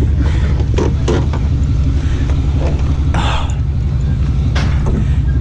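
Motor vehicle engine idling steadily, with a few sharp knocks and a brief rustling noise over it.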